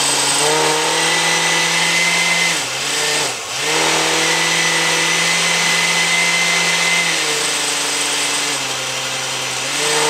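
Countertop blender motor running, blending fruit, milk and carob syrup into a smoothie. It hums steadily, briefly slows and dips about three seconds in, then picks back up, and settles to a lower pitch for a couple of seconds near the end before rising again.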